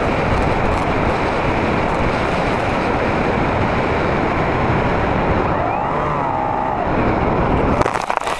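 Loud, steady wind rush over the onboard camera of an RC flying wing gliding low over a field, with a brief wavering whistle-like tone about six seconds in. Near the end come a few sharp knocks and scrapes as the plane touches down and slides into the grass.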